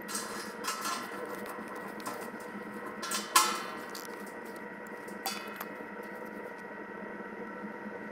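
Metal clinks and clanks of a wrench on a threaded pipe fitting at a fuel oil tank's outlet valve, the loudest a short ringing clank about three and a half seconds in. A steady hum runs underneath.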